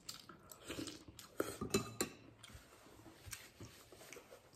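Quiet eating sounds: a man chewing a mouthful of arroz caldo (chicken rice porridge), with a few light clicks of a metal spoon against the bowl.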